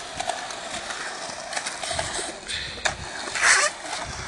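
Skateboard wheels rolling over the concrete of a skatepark bowl, with a few sharp clicks scattered through and a louder rush of noise about three and a half seconds in.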